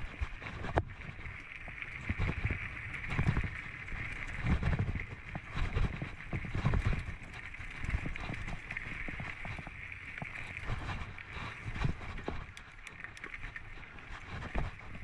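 Mountain bike rolling over a dirt singletrack: tyres crunching on loose dirt and bark, and the bike clattering over bumps with sharp knocks now and then. Wind rumbles in uneven gusts on the camera microphone.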